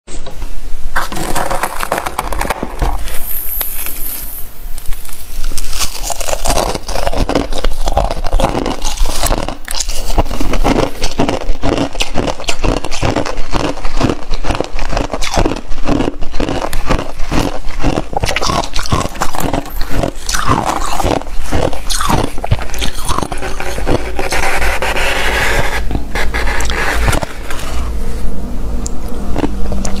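Thick freezer frost being scraped and crunched: a continuous, busy run of crisp crackles and scrapes.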